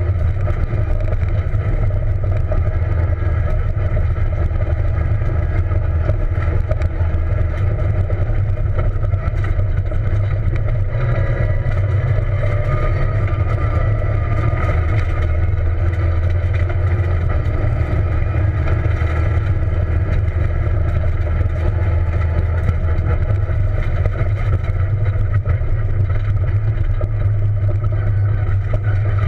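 Peugeot 207 rally car driven at speed on a dirt road, heard from inside the cabin: a loud, steady, low rumble of engine and road noise, with the engine pitch rising and falling a little.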